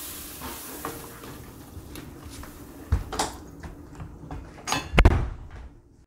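A pan of sautéed vegetables sizzling as water is added, the hiss dying down, then two sharp knocks about three and five seconds in, the second louder.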